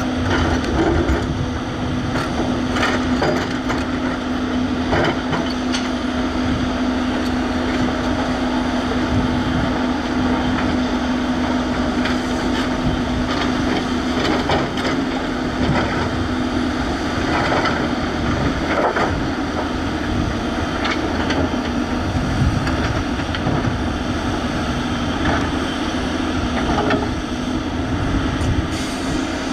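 Diesel tracked excavators and an articulated dump truck working: a steady engine drone with a humming tone that fades out a little past halfway, and scattered knocks of rock and soil as the excavator bucket digs and dumps into the truck's body.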